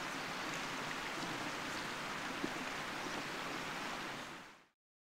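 Steady rushing of a mountain creek, fading out to silence about four and a half seconds in.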